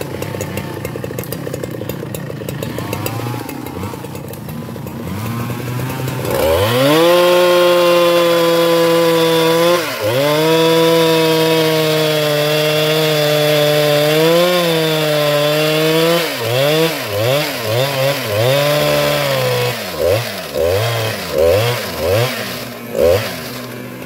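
Husqvarna 395XP two-stroke chainsaw running at low revs, then opened to full throttle about six seconds in and held high while cutting through very hard wood, the pitch dipping briefly around the tenth second. Near the end it is revved in a string of short throttle blips before dropping back.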